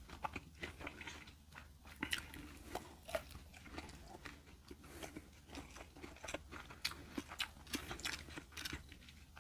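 Close-miked chewing and crunching of a fried egg roll, with irregular wet clicks and crackles.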